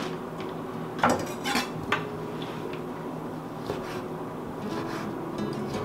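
Raw bacon slices and a chef's knife being handled on a wooden cutting board: a few sharp knocks and clinks between one and two seconds in, then soft rubbing and light taps, over a steady low hum.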